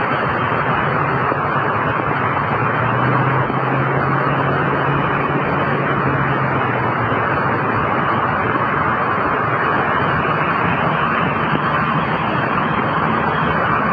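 Steady rushing noise of racing vehicles on a wet track, with a faint low engine hum for a few seconds in the middle.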